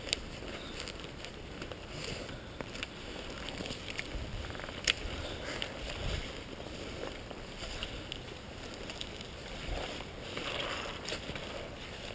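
Footsteps squelching and sloshing through wet mud and water, with scattered rustles and clicks. There is one sharp click about five seconds in.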